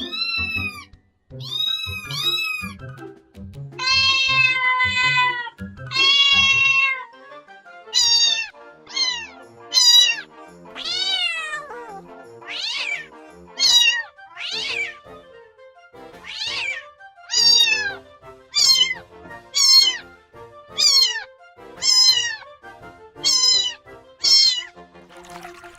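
A domestic cat meowing again and again, about twenty meows: a few longer, drawn-out calls first, then from about eight seconds in short meows roughly one a second. Background music with a soft beat plays underneath.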